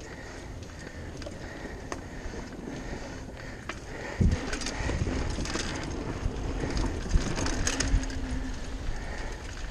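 Mountain bike rolling along a wooden boardwalk, its tyres clicking over the plank joints, then a thump about four seconds in as it drops onto the dirt trail. After that the tyre noise on the dirt and wind rumble on the microphone get louder as the bike picks up speed, with scattered knocks from the bumps.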